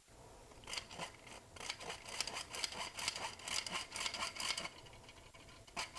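Metal flour sifter being worked over a skillet, a rhythmic rasping of the blade against the mesh at about three or four strokes a second. The strokes start just under a second in and stop about a second before the end.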